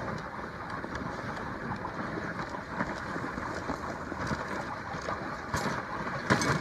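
Dog sled running down a snowy trail behind a team of sled dogs: a steady hiss of the runners sliding over the snow, with a few short knocks near the end.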